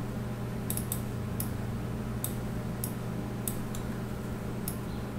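Computer mouse clicking: about eight short, sharp, high clicks at uneven intervals, over a steady low electrical hum.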